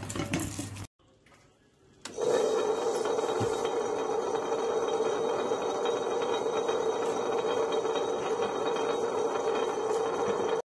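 Table-top wet grinder running empty, its stainless drum turning against the stone rollers: a steady hum with a scraping rattle that starts suddenly about two seconds in. A brief clatter comes in the first second.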